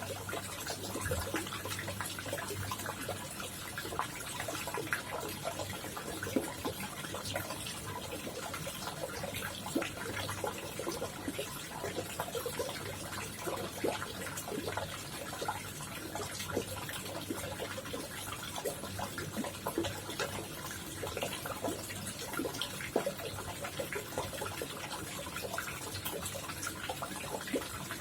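Water running and splashing steadily into a koi pond, a dense patter of small splashes and trickles, over a faint low steady hum.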